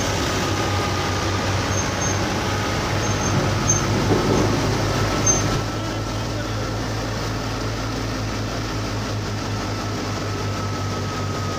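Fiat 640 tractor's diesel engine running steadily under load, driving a wheat thresher as straw is fed in. The steady drone has a faint high whine above it and eases slightly about halfway through.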